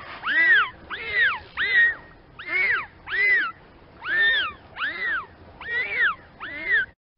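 Dolphin whistles: a quick run of about ten short calls, each rising then falling in pitch, that stops about seven seconds in.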